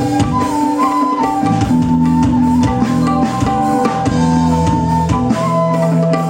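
Live band music: a drum kit beats steadily under held bass notes and a stepping melody line.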